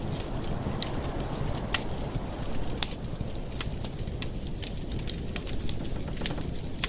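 Campfire burning: a steady low rush of flames with scattered sharp crackles and pops of burning wood, the loudest two about two and three seconds in.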